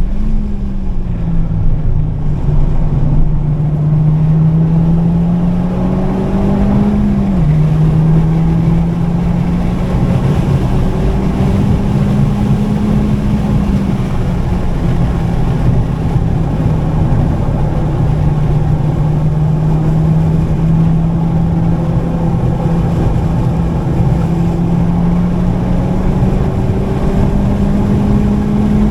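Honda Civic Type R FK8's turbocharged four-cylinder engine pulling hard on track, with road and wind noise underneath. The engine note climbs slowly and drops sharply at an upshift about seven seconds in, then climbs again to another shift near the end.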